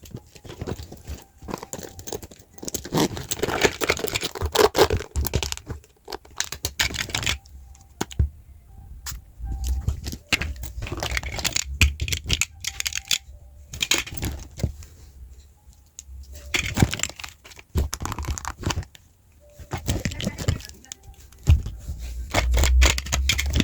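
Rustling and crinkling noise in uneven bursts, with many sharp clicks and taps.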